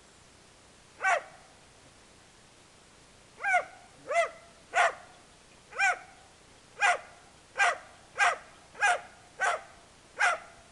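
Dalmatian barking: a single bark about a second in, then, after a pause, ten barks in a steady run at roughly one and a half a second.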